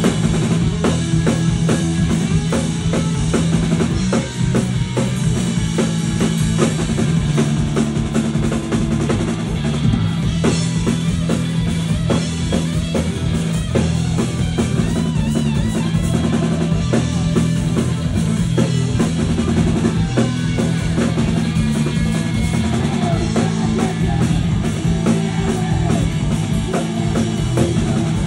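Rock band playing live and loud: a driving drum kit with bass drum and snare, electric bass and electric guitar.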